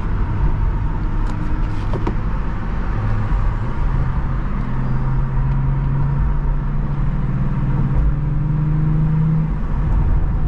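BMW M340i's turbocharged B58 inline-six, running through a catless downpipe, heard from inside the cabin while driving at low, steady revs. The engine note rises a little about four seconds in and holds there for several seconds.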